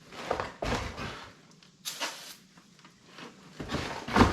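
Three short bursts of aerosol parts-cleaner spray hissing, to clean dust out of a tractor hub and its bearings, with a knock or two of the metal parts being handled.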